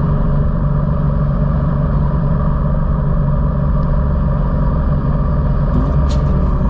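A road vehicle's engine and road noise, running steadily at an even speed with a constant low rumble. Music comes in near the end.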